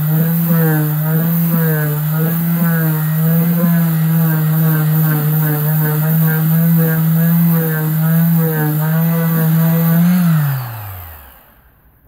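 Parkside cordless oscillating multi-tool running steadily at high speed with a slight waver in its hum. About ten seconds in it is switched off, and its pitch falls as the motor winds down to a stop.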